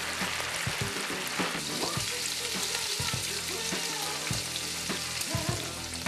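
Battered pieces of food sizzling steadily in hot oil in a pan.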